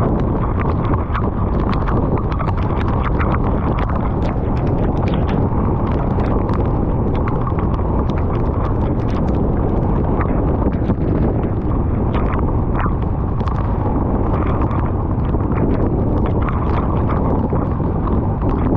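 Wind buffeting the microphone on a moving motorcycle in the rain, a loud steady rumble, with many irregular sharp ticks of raindrops striking the camera.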